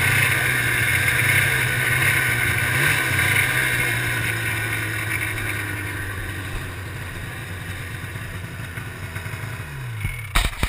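Ski-Doo Rev 800's two-stroke twin engine running at low speed, slowly easing off and dropping in pitch near the end as it winds down. A few sharp knocks come right at the end as it stops.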